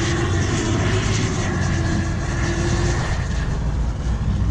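Small quadcopter drone, a DJI Mavic Mini, hovering nearby: a steady propeller whine whose pitch wavers slightly, over low wind rumble.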